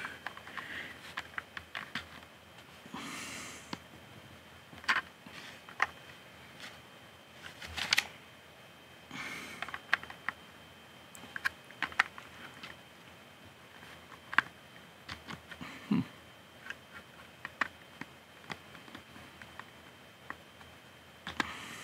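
Small Lego plastic pieces being handled and pressed onto a Lego model: scattered plastic clicks and taps at irregular intervals, with a couple of brief rustles.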